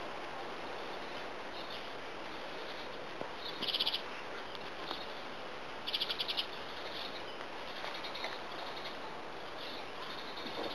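Steady background hiss with two short, rapid, high-pitched chirping trills, about four and six seconds in, and a few fainter ones.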